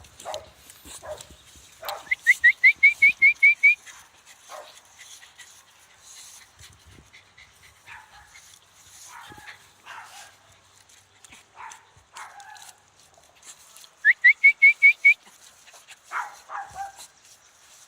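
A dog yipping in two quick runs of short, high, rising yelps, about six a second, the first about two seconds in and the second near the end, with softer whines and barks in between.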